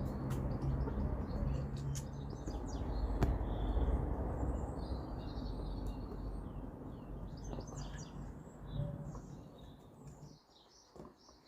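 Small birds chirping and tweeting over a low rumble, which cuts off about ten seconds in, leaving the chirps fainter.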